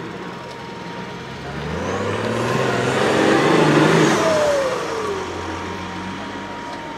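Trial truck prototype's engine revving under load as it climbs a steep dirt mound. It grows louder to a peak about halfway through, then eases off with a falling whine as the truck passes by.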